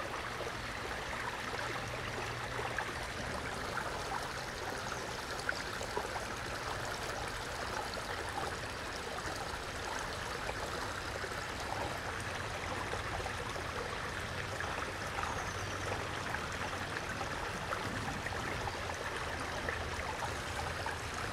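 Shallow rocky creek trickling steadily over stones, with faint scattered splashy ticks.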